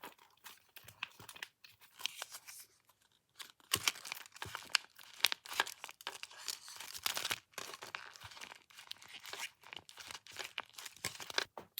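Crinkly plastic packaging around a small squishy toy being handled and pulled open, with irregular crackling and rustling that grows busier after a few seconds.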